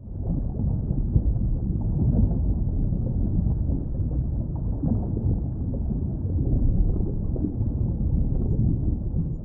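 Deep, muffled rumbling noise that starts suddenly and holds steady, heavy in the low end with no high sound at all.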